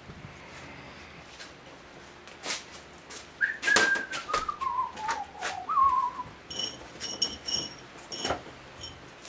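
A man whistling a short phrase that slides down in pitch, then a brief second note, with scattered clicks and knocks of things handled on a workbench. Near the end comes a run of short, high chirps.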